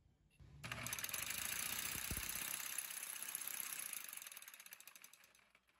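Reciprocating saw running at its lowest speed setting, shaking a bolted steel test jig so that it clatters rapidly. About four seconds in the strokes slow and the saw winds down to a stop.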